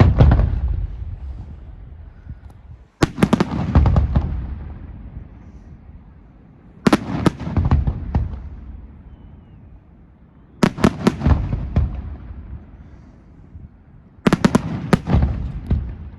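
Fireworks going off in five volleys, one every three to four seconds. Each volley is a quick cluster of sharp cracks followed by a low, rolling boom that dies away.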